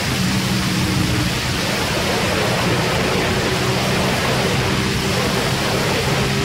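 Heavy wind rush over the microphone at speed, with a Ducati Panigale's V-twin engine running at fairly steady revs underneath.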